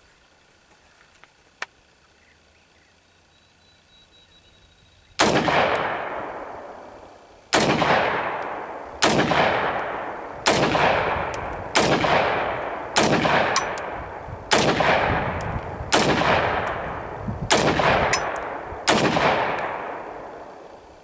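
Kel-Tec SU-16 semi-automatic rifle, chambered in .223 Remington, fired ten times in a steady string, about one shot every second and a half. Each sharp crack is followed by a long echo that fades away. The shooting starts about five seconds in.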